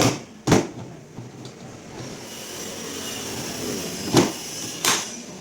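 A toolbox being handled: a few sharp knocks, two near the start and two near the end, with a scraping, sliding sound building up between them.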